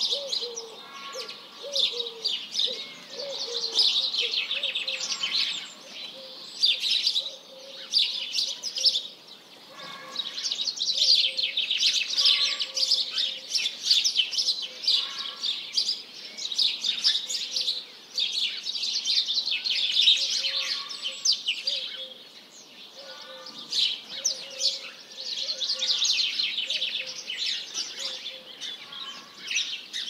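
Songbirds singing in long, fast, chattering trills that come in phrases of a few seconds with short lulls between them, over repeated low cooing notes.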